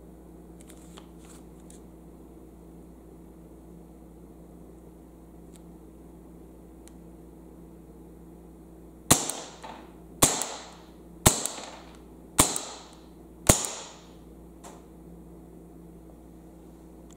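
Airsoft Nambu Type 14 pistol firing five shots, evenly spaced about a second apart, each a sharp crack with a brief ringing tail.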